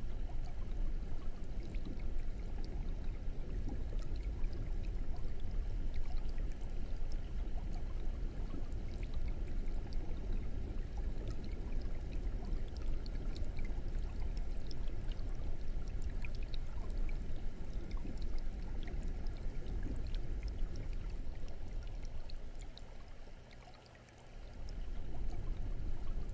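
Aquarium air stone sending a steady stream of bubbles up through the water, a continuous bubbling and trickling wash with small pops of bubbles breaking at the surface. It dips for a moment near the end, then comes back.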